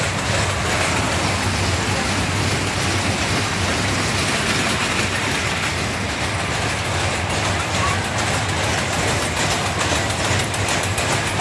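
Steady fairground din: a constant low mechanical hum and rumble from running machinery, with a crowd's voices mixed in.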